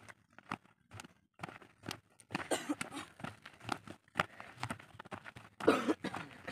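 Quick, irregular footfalls and scuffs of feet on dry packed dirt as players hop and sidestep through a line of ground markers in a footwork drill. They are sparse at first and come thick and fast after about two seconds, with one louder scuff about two-thirds of the way in.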